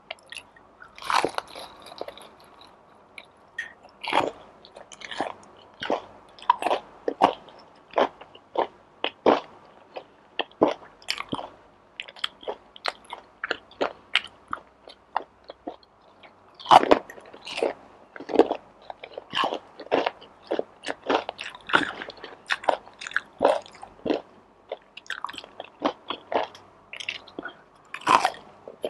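Close-miked chewing with repeated crisp crunches, about one or two a second, typical of biting through fried breaded calamares.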